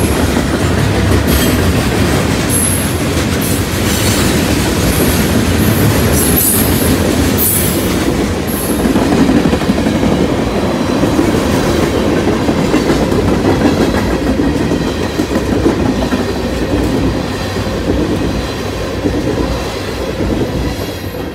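Freight cars, gondolas and tank cars, rolling past at close range: a steady loud rumble of wheels on rail, with a few short high-pitched wheel squeals in the first half. The sound falls away in the last second as the end of the train clears.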